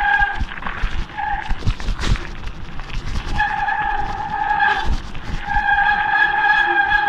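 Bicycle disc brakes squealing with a high, steady tone in repeated spells as the rider brakes on a gravel descent: briefly at the start, a short squeal about a second in, a longer one about three and a half seconds in, and another from about five and a half seconds on. A low rumble of wind and tyres runs underneath.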